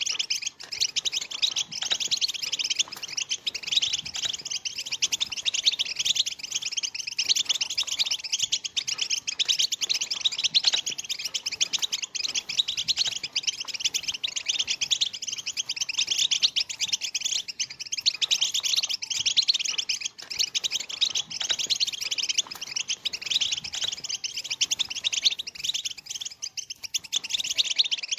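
A flock of European goldfinches twittering and chirping together in a dense, unbroken chorus of rapid high notes.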